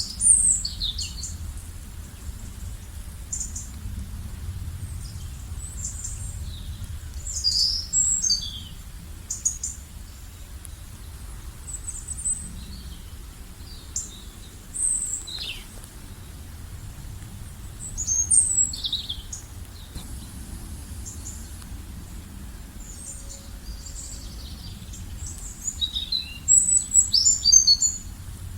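Small songbirds chirping and twittering in short high bursts every few seconds, with a busier flurry of chirps near the end, over a steady low outdoor rumble.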